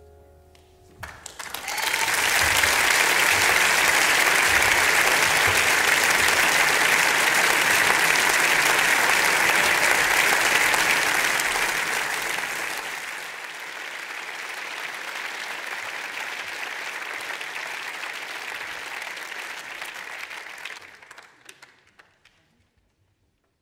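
Audience applauding a live big band: the last held chord fades out about a second in, the clapping rises quickly, eases off about halfway through, and dies away near the end.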